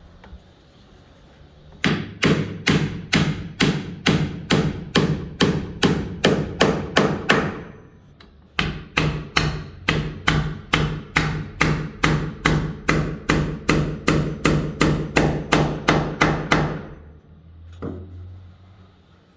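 Hammer striking a nail into wood, steady blows at about three a second in two long runs with a short pause between them, then one single knock near the end.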